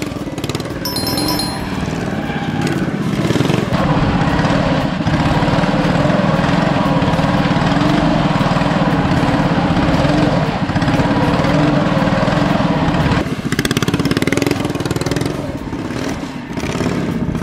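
Drift kart's 225cc single-cylinder engine running hard as it is driven, revving up and down with the throttle. It eases off a few times, the longest near the end.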